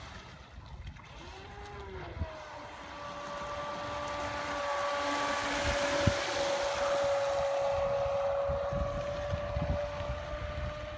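Radio-controlled electric speedboat running flat out: a steady high motor whine, with the hiss of its hull and spray rising as it passes close about halfway through and then easing as it heads away.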